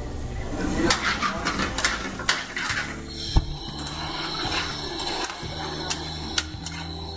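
Metal utensils clinking and scraping against bowls and a steel frying pan as food is stirred over a gas burner. The clicks are busiest in the first few seconds, with one sharp knock partway through, all over a steady low kitchen hum.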